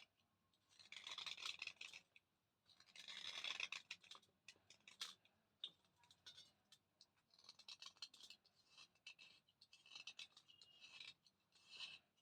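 Close-up gritty crunching of a thick slate pencil, dry and chalky. There are two longer crackling bursts in the first four seconds, then shorter bursts and scattered crisp clicks.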